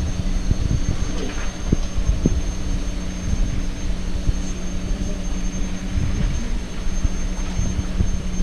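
Inclined moving walkway running: a steady low mechanical hum and rumble with scattered light clicks and knocks.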